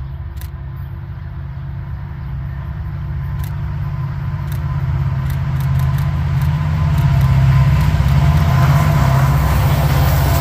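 Canadian Pacific SD70ACU diesel-electric locomotive approaching at the head of a freight train, its low engine rumble growing steadily louder as it comes close.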